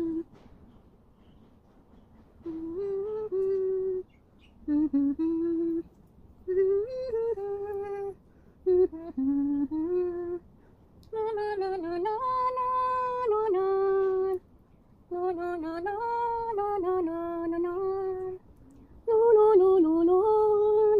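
A woman humming a slow, gentle tune in about seven short phrases, each a second or three long, with brief pauses between them.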